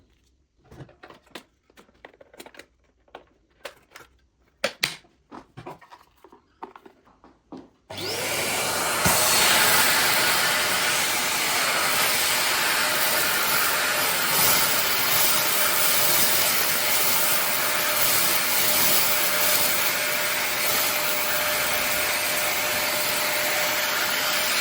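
Scattered light clicks and taps, then about a third of the way in the SilverCrest SHZK 600 2-in-1 vacuum cleaner switches on and runs steadily, a loud even rush with a faint constant tone in it.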